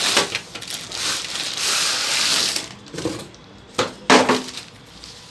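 Ceiling fan blades being unpacked: their packaging crackles and crunches as it is handled and pulled open, then a few knocks about three to four seconds in.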